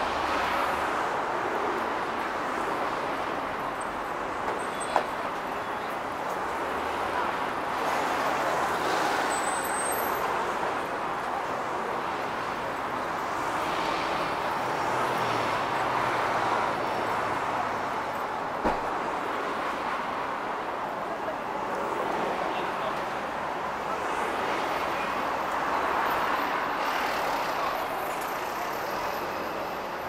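Road traffic on a city street: cars and a city bus driving past, a steady noise of tyres and engines that swells and fades as each vehicle goes by.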